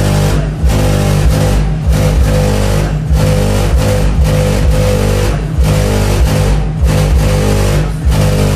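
Chevy Impala's trunk-mounted subwoofers playing bass-heavy music loud, with a heavy bass beat hitting about once a second and the car body rattling with the bass.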